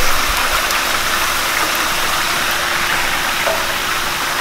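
Corn fritters sizzling in hot oil in a frying pan: a steady hiss, with a single knock right at the start.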